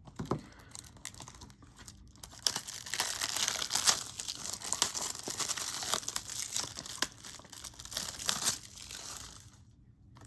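Crinkling and rustling of the packaging on a 4K Blu-ray case as it is handled, dense with small crackles, starting about two seconds in and dying away near the end.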